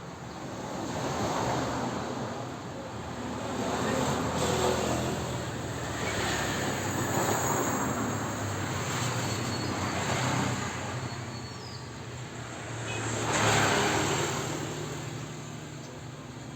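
Road traffic going past: several vehicles swell and fade one after another over a low steady hum, the loudest pass about thirteen seconds in.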